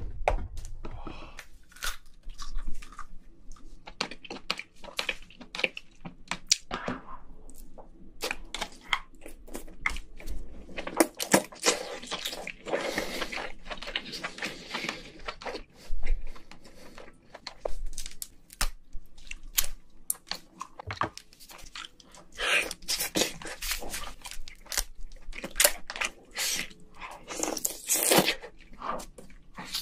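Close-miked eating of cooked king crab: crunching and crackling as the shell is broken apart and the meat pulled out, mixed with wet chewing of the crab meat. Irregular clicks and crackles, busiest in a few stretches.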